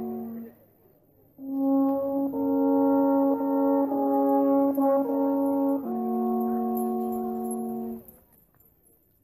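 Alphorn playing: a held note dies away, then after a short pause a slow phrase of several long notes follows, ending on a long low note.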